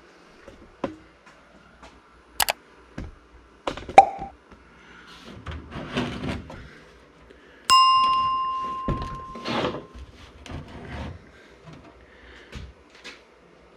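Scattered clicks, knocks and rustling of small parts being handled, with one clear bell-like ding about eight seconds in that rings out and fades over about a second.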